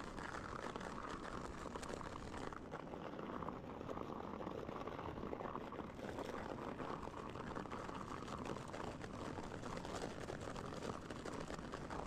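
Mountain bike rolling downhill over snow: a steady rushing noise from the tyres, full of small crackles.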